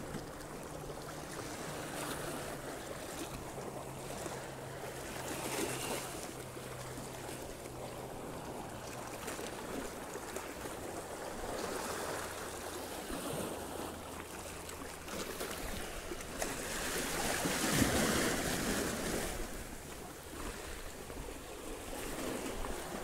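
Small waves washing and lapping against the shoreline rocks, swelling loudest about three-quarters of the way through. A motorboat's engine hums faintly and low underneath for roughly the first two-thirds.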